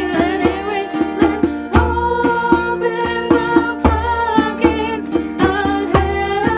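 A song: a sung melody with vibrato over a plucked string instrument accompaniment, with a regular beat of plucked notes and low bass pulses.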